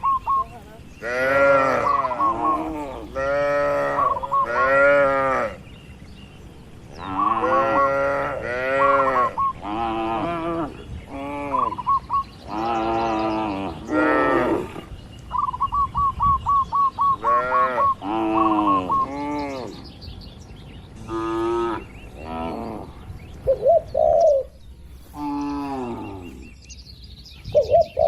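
Cattle in a barn mooing over and over, one call after another with hardly a pause. Each moo lasts about a second and bends up and then down in pitch, and several animals call over one another at different pitches.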